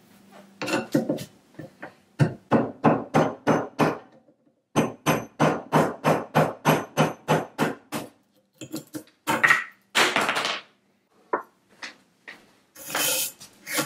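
Wooden mallet knocking on a Japanese kitchen knife held in a bench vise, driving the wooden handle off the tang: repeated sharp knocks, about three a second, in two long runs with a short pause about four seconds in. Near the end a scrubbing rush starts as a wire brush works the rusty tang.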